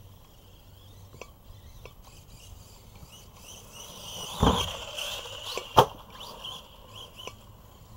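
Arrma Big Rock v3 RC monster truck driving on dirt, its electric motor whining with tyre noise as it speeds up about four and a half seconds in. A single sharp knock follows a little over a second later.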